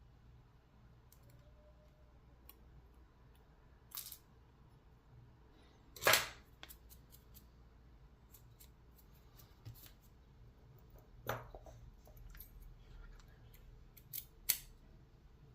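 Scattered sharp metallic clicks and taps from a brass padlock and its small parts being handled as it is worked on. The loudest click comes about six seconds in, and there are a few more near the middle and end.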